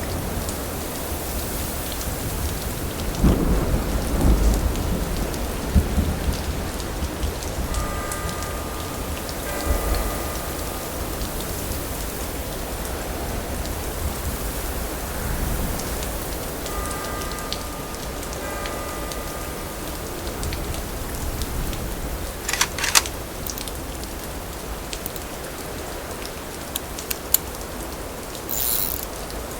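Steady rain falling, with low thunder rumbling about three seconds in and again around ten seconds. Two faint thin tones come and go in the middle, and a few sharp clicks sound near the end.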